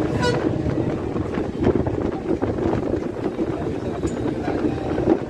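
A city bus running along the road, heard from inside the cabin: a steady engine drone under road and wind noise, with frequent short rattles and knocks from the bus body.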